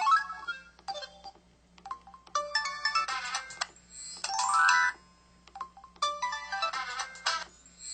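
Samsung SCH-B340 mobile phone's built-in sound effects played one after another through its small speaker: short electronic jingles and tones with brief pauses between them, several ending in a quick rising run of notes.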